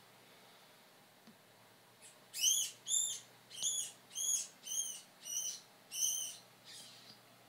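Live rat squeaking in distress while a corn snake constricts it: about eight short, high-pitched squeaks, roughly one every two-thirds of a second, starting about two seconds in.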